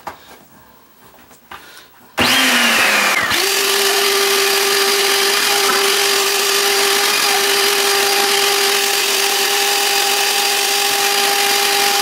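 Hoover Sprint QuickVac vacuum cleaner switched on about two seconds in, its motor spinning up in a second to a steady whine over loud rushing air as the hose sucks up a pile of dirt and grit. The hose has just been cleared of a clog and is pulling with good suction again.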